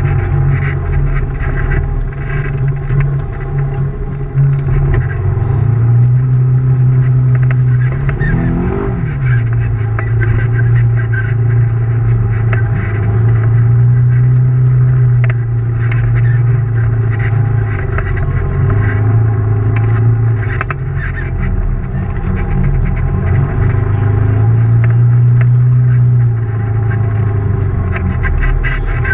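Side-by-side UTV engine running as it is driven along a bumpy dirt trail, its pitch shifting up and down with the throttle. It revs up sharply and drops back about nine seconds in. Rattles and knocks from the machine bouncing over the trail come and go.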